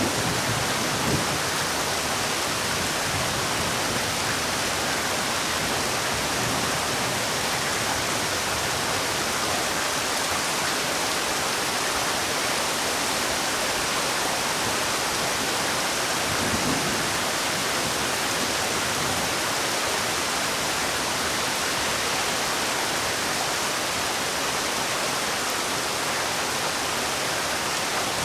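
Heavy rain falling steadily in an even hiss, with no breaks or let-up.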